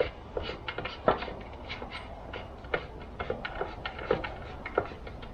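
Irregular light clicks and taps of hand tools and small parts being handled during chainsaw reassembly.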